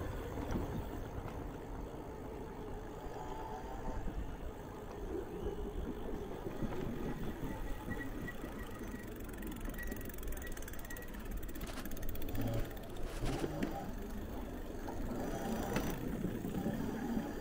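Riding noise from an electric bicycle with a rear hub-motor conversion: a steady low rumble of wind and tyres rolling over paving slabs and wooden boardwalk decking, with a few light knocks in the second half.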